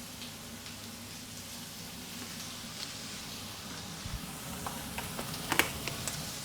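A stir-fry of peppers, tomatoes and soy sauce mixture sizzling steadily in a pan, with a few sharp clicks and taps in the second half.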